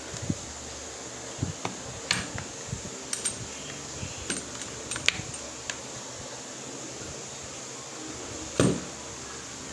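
Scattered plastic clicks and light knocks as the Bosch angle grinder's housing cover is pressed and fitted back over the refitted carbon brushes, with one louder knock near the end.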